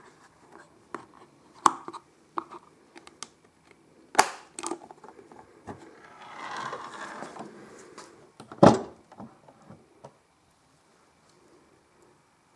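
Handling noises from an HMV 101 portable gramophone as its case is opened and the tone arm is moved: scattered clicks and knocks of the metal catch, lid and arm. There is a scraping rattle about six seconds in and a single loud knock nearly nine seconds in.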